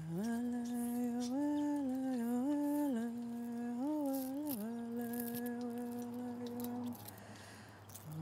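A single voice humming a slow wordless melody, holding long notes with short slides up and down between them; the phrase ends about seven seconds in.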